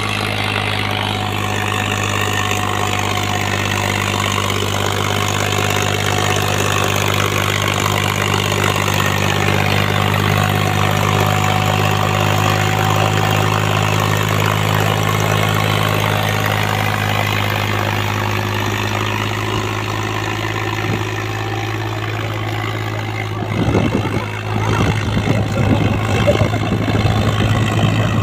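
Massey Ferguson tractor's diesel engine running steadily under load while pulling a disc harrow through sandy soil. The sound grows louder and more uneven for the last few seconds.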